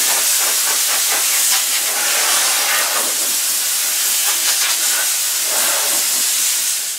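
Compressed-air blow gun on a coiled air hose hissing in one long, steady blast as it blows sanding dust off a freshly sanded teak-veneer tabletop, cutting off suddenly at the end.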